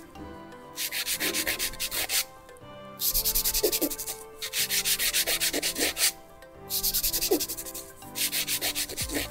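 Hand nail file rasping quickly back and forth across a gel nail to shape it, in four spells of rapid strokes separated by short pauses.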